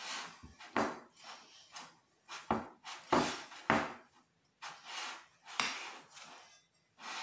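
A large spoon scraping and knocking against a glass mixing bowl in short, irregular strokes as stiff bread dough is stirred and worked.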